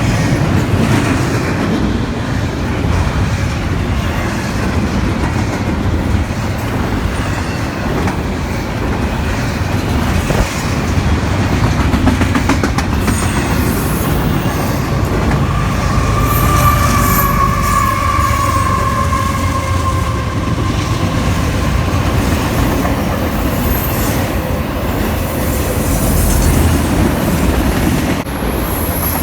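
Freight train rolling past with steady wheel rumble and clickety-clack over the rail joints. A high, wavering squeal of wheels on rail rises about halfway through and fades several seconds later.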